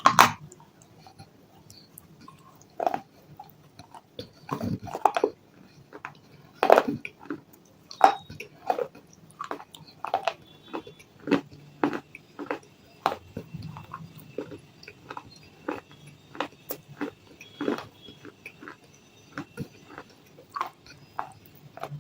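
Close-up chewing and mouth sounds of someone eating chow mein noodles: many short, irregular wet clicks and smacks, a few each second.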